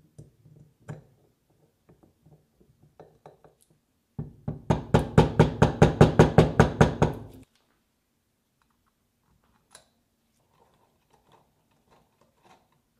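Screwdriver working screws on the metal brush-holder plate of an antique vacuum motor housing. About four seconds in there is a loud run of rapid, even clicks, about five a second, lasting some three seconds. Before and after it come small clicks and knocks as metal parts are handled.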